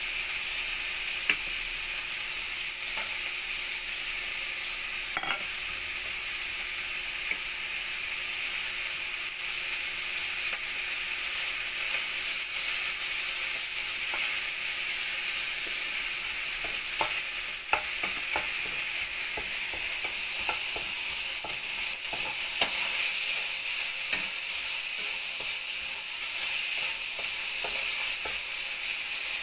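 Diced bacon sizzling as it fries in a hot wok, a steady hiss, with a few light clicks and scrapes from a wooden spoon stirring it against the pan.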